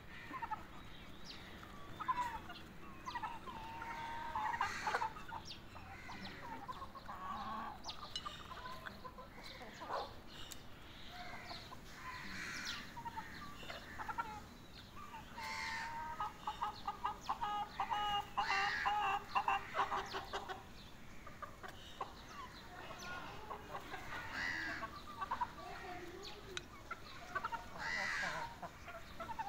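Chickens clucking and calling on and off, with a fast run of repeated clucks about halfway through.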